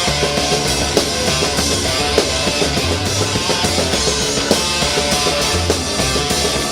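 Loud, steady rock music: guitar over held bass notes and a drum kit hitting in a regular beat.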